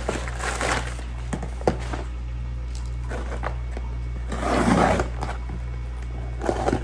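Unboxing sounds: a plastic mailer bag crinkling at first, then cardboard box and contents being handled, with a click and a louder rustling scrape about two thirds through. A steady low hum runs underneath.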